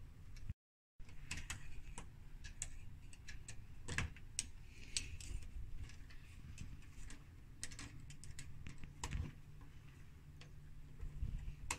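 Hand screwdriver driving a doorknob's mounting screws, with irregular small metallic clicks and ticks.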